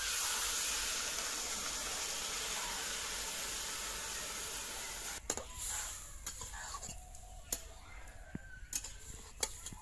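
Water poured into a hot iron kadai of frying fish and cauliflower hisses and sizzles loudly, starting all at once and dying down after about five seconds. After that, a spatula stirring the curry knocks and scrapes against the pan a few times.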